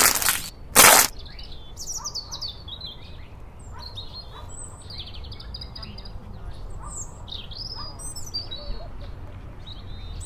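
Birds chirping and singing in many short, high calls over a low background rumble. Right at the start come two brief, loud noisy bursts less than a second apart.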